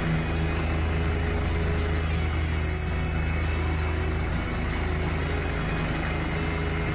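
OH-58D Kiowa Warrior helicopter running on the ground with its rotor turning, a steady, unbroken engine and rotor drone. The engine is kept running for hot refuelling and rearming.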